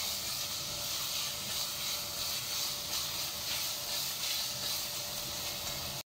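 Diced chicken breast sizzling steadily in olive oil in an enamelled cast-iron pot while a spatula stirs it.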